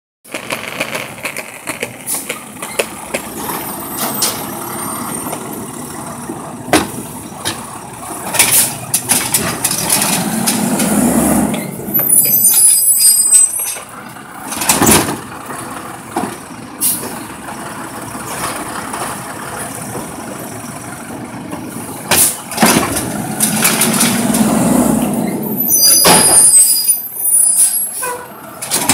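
Natural-gas-powered automated side-loader garbage truck working its hydraulic arm to grab, lift and dump wheeled carts. The engine and hydraulics swell in two long cycles, with loud bangs as the carts are shaken out and knocked back down, and short high squeals near the top of each cycle.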